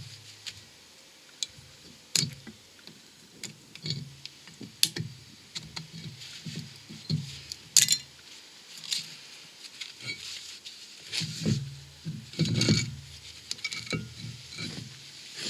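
Irregular metallic clicks, clinks and knocks of hand tools and a steel wheel hub being handled, as the outer and inner circlips are worked out of the hub with circlip pliers. There is a sharp click about halfway through and a run of heavier knocks near the end.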